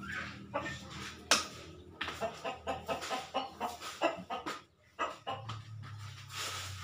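Chickens clucking in short, repeated calls, with one sharp knock about a second in.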